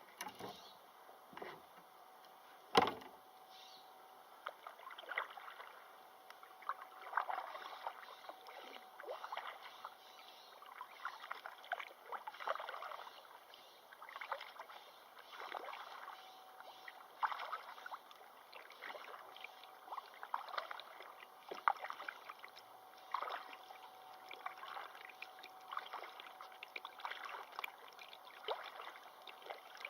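Water splashing and sloshing in irregular bursts every second or two, with one sharp knock about three seconds in.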